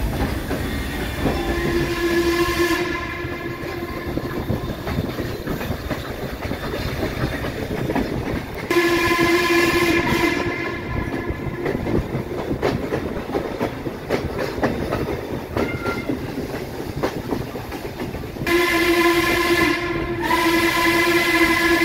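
Steam whistle of Baldwin 2-6-6-2 articulated locomotive 1309, heard from right behind the tender. It is blown in blasts several seconds apart, three of about a second and a half each, then a longer one with a brief break. Under it runs the steady rumble and rail clatter of the moving train.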